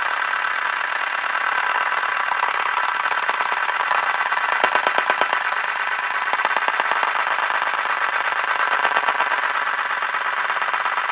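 A rotating mechanism whirring steadily with a fast rattling pulse, swelling a little about halfway through.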